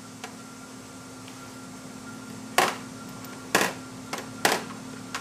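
Three sharp knocks about a second apart, with a fainter one between the last two, over a steady hum.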